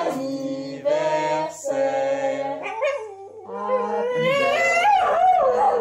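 A Shiba Inu howling along with a person who sings long, steady held notes. The dog's wavering howls rise and fall in pitch and are loudest in the second half.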